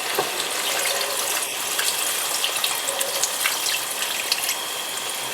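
Thick coconut milk pouring into a hot pot of chicken and vegetables: a steady liquid gush, with a few faint ticks.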